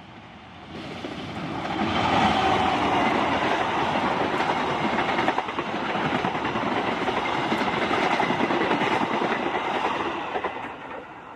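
Diesel-hauled passenger train passing at speed: the sound swells as the locomotive arrives about a second in, then holds as a loud rush with wheel clatter over the rail joints while the coaches go by, and fades near the end as the last coach passes.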